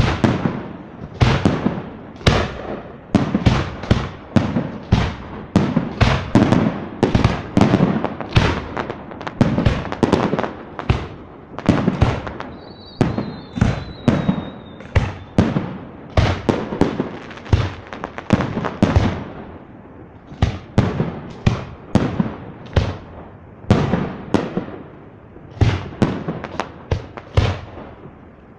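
Fireworks display: aerial shells bursting in a steady barrage of sharp bangs, about two a second, each fading out briefly. Around the middle a thin high whistle slides slightly down for a few seconds.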